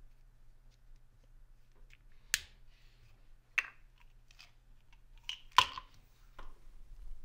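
Plastic prescription pill bottle being opened and handled on a counter: a few sharp plastic clicks and taps as the child-resistant cap comes off and is put down, the loudest about two-thirds of the way through.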